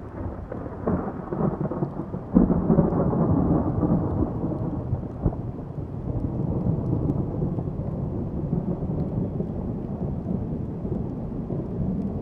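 Thunder: a rumble builds about a second in, then a sharp, loud crack comes about two and a half seconds in, a shorter crack near five seconds, and a long low rumble rolls on after it.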